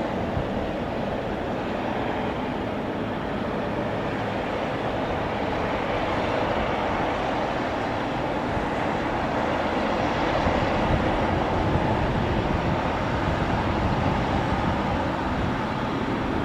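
Jet engines of a British Airways Airbus A350-1000, Rolls-Royce Trent XWBs, at approach power on final approach with gear down: a steady rushing jet noise that swells about eight to ten seconds in as the aircraft draws closer.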